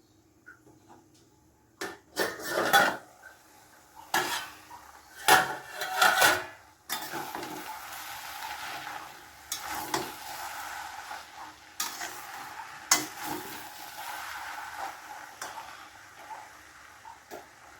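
A spoon stirring in a metal cooking pan, clanking loudly against it several times, then food frying with a steady sizzle under occasional knocks of the spoon.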